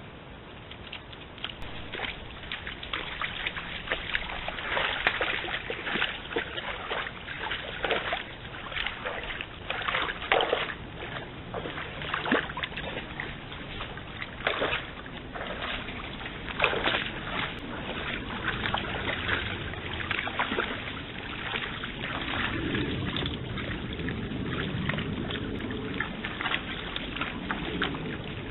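Red deer hind wading in a stream, water splashing and sloshing around its legs in irregular splashes, heard through a trail camera's microphone.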